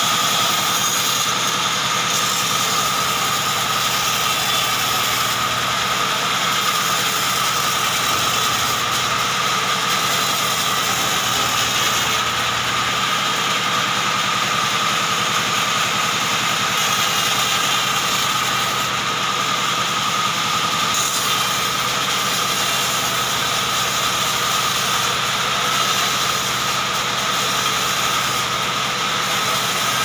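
Large sawmill band saw running steadily, a constant machine drone with a steady high tone over it.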